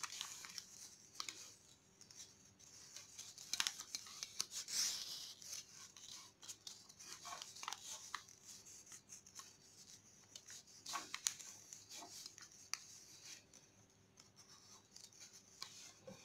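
Origami paper rustling and crackling on and off as hands fold it, pull the folded layers open into a boat shape and press the creases flat.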